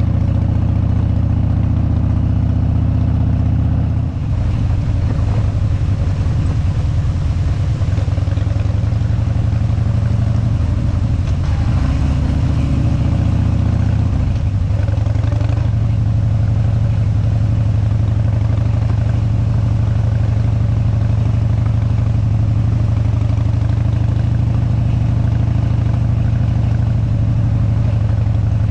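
Harley-Davidson big-twin V-twin engine running under way on a gravel road, with a steady, loud low exhaust note. The engine note shifts about four seconds in and again around fourteen to sixteen seconds in.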